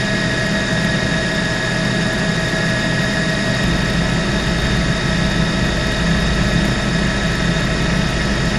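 Steady turbine and rotor noise of a news helicopter heard from on board, with several constant high tones over a low rumble that grows slightly a few seconds in.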